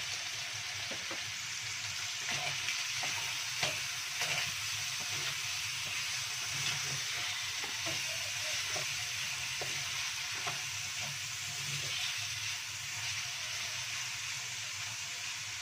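Chopped chicken and dried mushrooms sizzling in oil in a non-stick wok, stirred with a wooden spatula that scrapes and taps the pan now and then in short clicks over a steady hiss.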